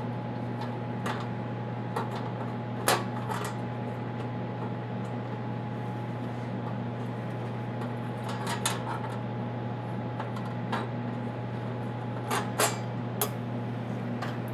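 Clicks and knocks of a fibre-optic splice-tray drawer and its lid being handled and slid into an ODF rack. There are a few sharp ones about three seconds in, more around the middle and a cluster near the end, over a steady low hum.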